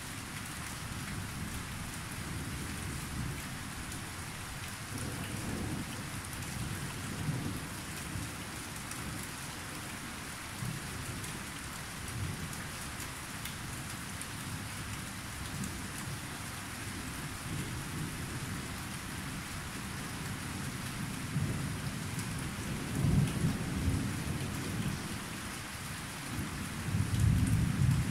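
Thunderstorm at night: steady rain falling, with low rolling thunder rumbling on and off and growing louder near the end.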